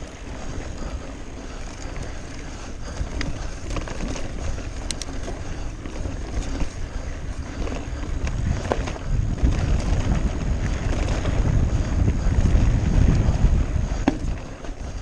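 Wind buffeting the microphone of a mountain bike descending a rocky dirt singletrack, over the bike's rattles and scattered knocks as it rolls over stones. The wind rumble grows stronger about halfway through.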